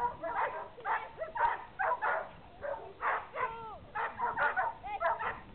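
A dog barking rapidly and without a break, about two to three high yapping barks a second, with a couple of whining yelps in the middle, typical of a dog excited during agility work.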